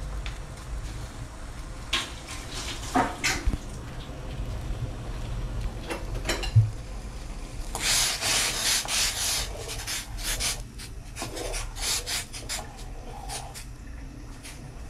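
Metal spoon stirring and scraping around a stainless steel pot of soup in quick repeated strokes, starting about halfway in. It is preceded by a few scattered clicks and knocks, over a low steady rumble.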